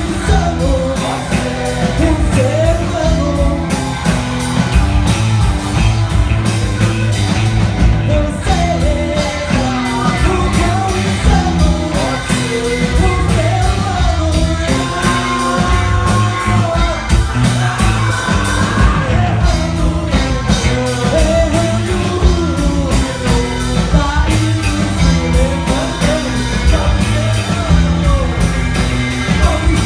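Rock band played live: a singer over bass, guitar and a steady drum beat, loud throughout.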